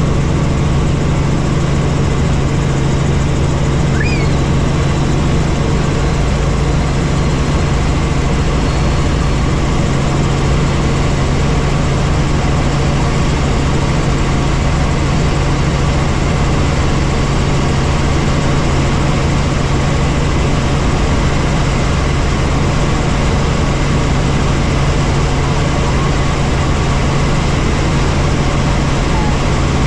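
Helicopter in flight: a steady, loud drone of engine and rotor with a strong low hum underneath.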